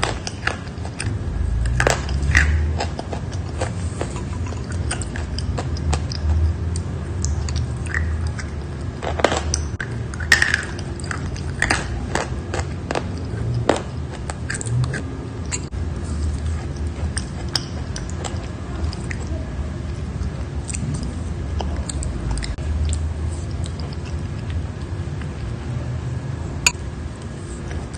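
Close-up biting and chewing of crunchy chalk: irregular sharp crunches over a steady low chewing sound. The crunches are thickest in the first half and thin out toward the end.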